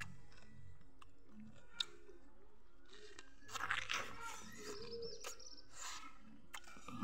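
Mouth biting into and chewing a raw lemon's flesh, wet and crunchy, mostly from about three and a half seconds in.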